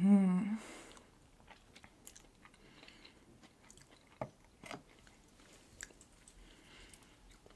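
A short closed-mouth hum, "mmm", right after a sip of champagne, followed by faint scattered wet mouth clicks and chewing sounds close to the microphone.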